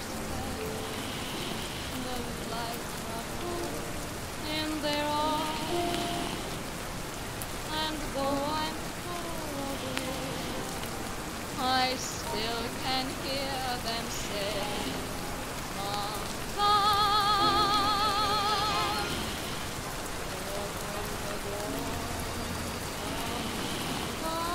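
Steady rain, with old-time jazz music playing softly beneath it. About two-thirds of the way in, a held note with heavy vibrato sounds loudest for around two seconds.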